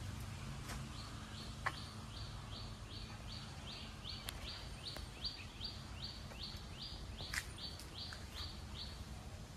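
A bird repeating one short, high note about three times a second, growing louder toward the middle and stopping near the end. Under it runs a faint steady low hum, with a few light clicks.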